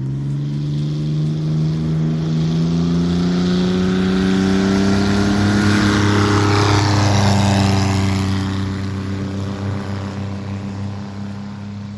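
Light propeller aircraft flying past. Its engine note rises steadily, is loudest about seven seconds in as it passes, then fades.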